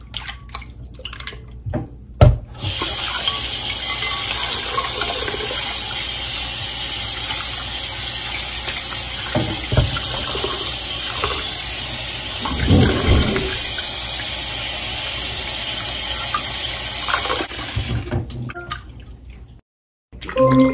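Kitchen tap running steadily into a bowl of water in a stainless steel sink while raw steak is rinsed and swished by hand. The water comes on with a sharp knock about two seconds in and stops a few seconds before the end.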